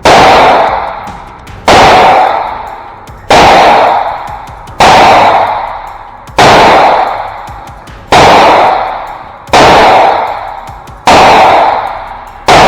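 Anderson AR-15 rifle fired in steady slow fire, eight shots about a second and a half apart. Each shot cracks sharply and then rings out in a long echo.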